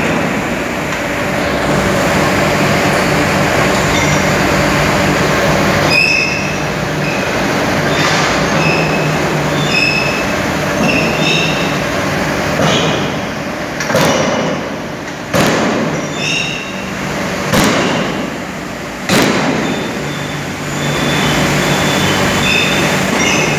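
Forge-shop machinery: flywheel-driven mechanical forging presses running with a steady low hum, several heavy strikes in the second half, and repeated short high squeaks.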